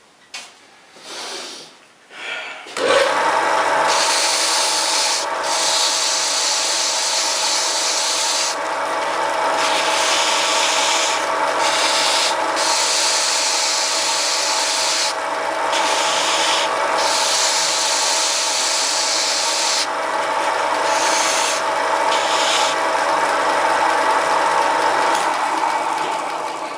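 Homemade mini lathe's single-phase motor starting about three seconds in and running with a steady hum, while a drill bit cuts into the spinning workpiece with a rasping hiss that comes and goes as it is fed in. The lathe winds down near the end.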